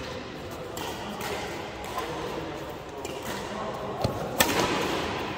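Badminton play in a large hall: two sharp racket hits on the shuttlecock about four seconds in, the second loudest and ringing briefly, over steady hall noise.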